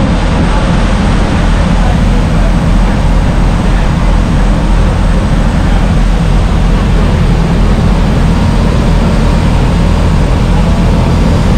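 Speedboat's engines running steadily at speed, mixed with the rush of the wake and wind buffeting the microphone on the open stern deck.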